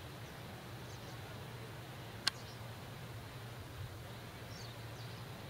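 Quiet outdoor ambience: a steady low hum with a few faint, high, short bird chirps, and a single sharp click a little over two seconds in.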